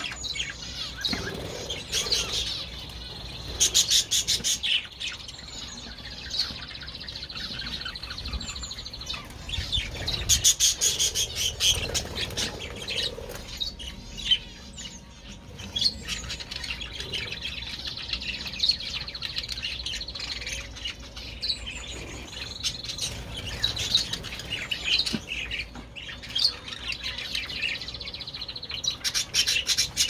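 A flock of budgerigars chattering and warbling: a continuous stream of high chirps, with a few louder bursts of rapid chatter.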